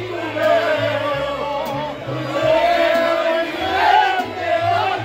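Live mariachi music: a violin playing a wavering, vibrato-laden melody over a strummed guitar and changing bass notes, with a man singing along.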